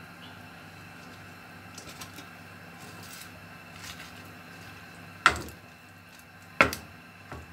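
Wooden spoon knocking sharply twice on the rim of a stainless steel cooking pot, about a second and a half apart, each knock ringing briefly, with a lighter third tap near the end. Before that there are only a few soft clicks of the spoon among the cabbage in the pot.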